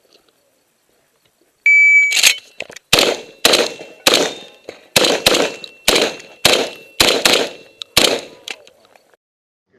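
An IPSC shot timer beeps once, then a Saiga 12 semi-automatic 12-gauge shotgun fires about a dozen shots in quick strings over some six seconds, each shot ringing off.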